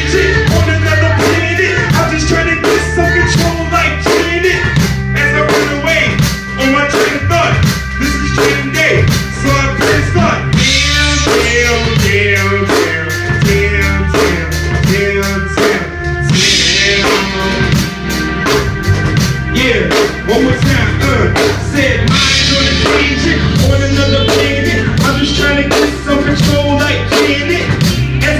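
Hip-hop backing beat played loud through a PA, with a steady drum pattern and deep bass and a vocal line over it.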